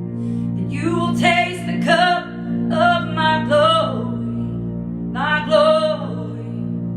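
Wordless singing over a steady droning backing, a native-style chant in three short vocal phrases, the last beginning a little past five seconds in.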